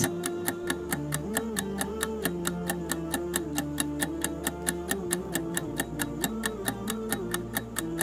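Quiz countdown timer sound effect: even clock ticks, about five a second, counting down the answer time over a soft background music melody.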